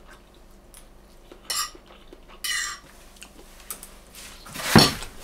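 Metal fork scraping and clinking against a ceramic plate, two short strokes about a second and a half and two and a half seconds in, the second ringing briefly. A louder, duller short sound comes near the end.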